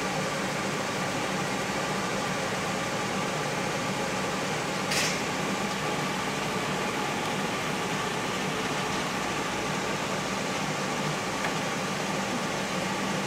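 A steady mechanical hum with faint constant tones, like a fan or air handler running, with a short hiss about five seconds in.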